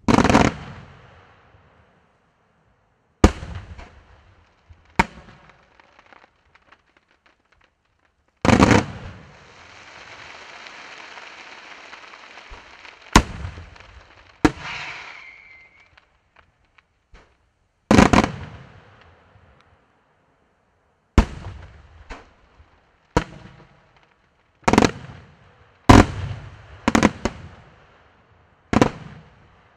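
Aerial firework shells bursting one after another, each a sharp boom trailing off in echo, irregularly spaced at first and coming quicker near the end. Between the early bursts a steady hiss lasts several seconds.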